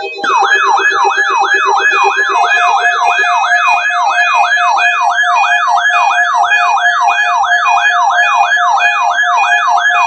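Several NOAA weather radio receivers sounding their alert alarm for a required weekly test: a loud rising siren-like sweep repeated about three times a second, over a steady tone with faster warbling tones above it.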